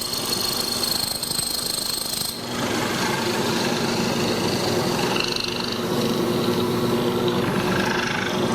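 Hollow-chisel mortiser running, its motor humming steadily while the square chisel and auger bore into wood to cut a mortise. About two and a half seconds in, a high whine drops out and the sound turns rougher.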